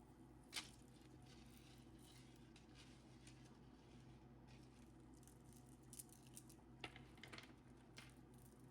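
Near silence: room tone with a few faint clicks and rustles of handling, including one sharper click about half a second in and a cluster of small ticks near the end.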